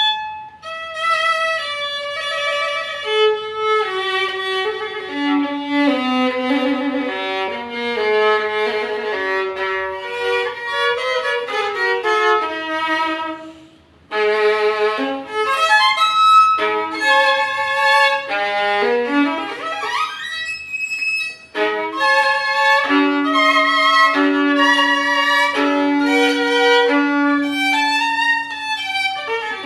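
A Derazey-school violin played solo with the bow: a melodic passage with vibrato, a short break about halfway through, an upward slide, then long held low notes near the end.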